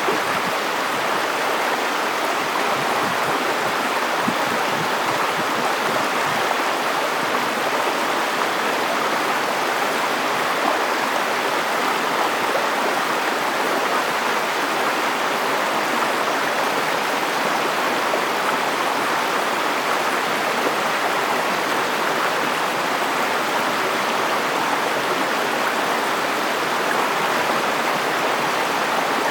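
A river flowing, a steady rushing of water over stones with no change.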